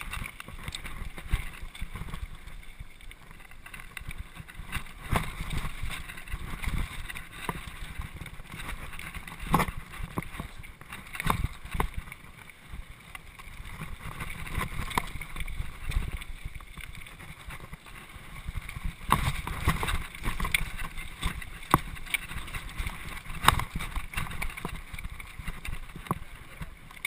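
Mountain bike riding down a rocky dirt trail: a continuous rumble of the tyres over dirt and stones, broken by frequent irregular knocks and rattles as the bike hits rocks and roots, with wind on the microphone.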